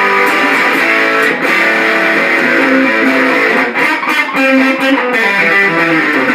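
Alvarez Dana II electric guitar with Triforce pickups, in the second pickup-selector position, played through an old Japanese-made Boss DS-1 with the distortion all the way up, into a 1981 Peavey Backstage amp's 10-inch speaker: heavily distorted riffs and held notes.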